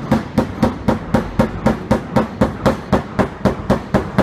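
Rubber mallet beating steadily on a flat steel tap-down spatula held against a car's sheet-metal fender, about four blows a second. The blows knock down the raised tension around a dent so that the dent loosens.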